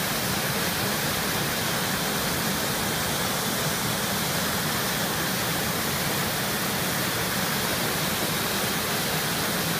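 Waterfall in high flow after heavy rain: a steady, even rush of muddy floodwater pouring over a rock ledge.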